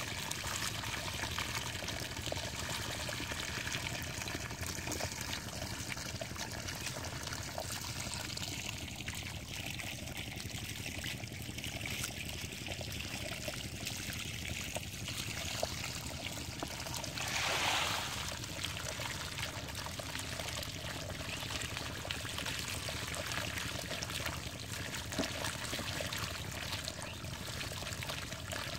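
Pond water pouring steadily through a narrow mud channel into a woven basket of fish, with a brief louder burst of noise about two-thirds of the way through.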